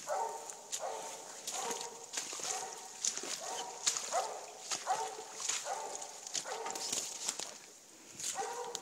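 An animal calling over and over in short, evenly repeated calls, about ten of them, with a brief pause near the end.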